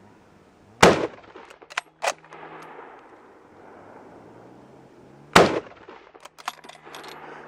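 Two loud gunshots about four and a half seconds apart, with a couple of lighter sharp cracks soon after the first and a few faint clicks near the end.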